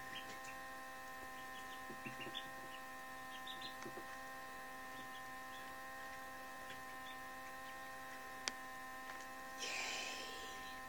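Steady electrical hum of the incubator with several steady tones, with faint, muffled cheeps from a hatching Indian Runner/Khaki Campbell duckling inside the shell. Near the end, a brief crackling rustle as the duckling pushes out and breaks open the top of its eggshell.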